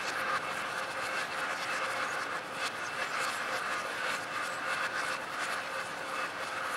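Rain falling on a lake: a steady hiss of many small drops hitting the water.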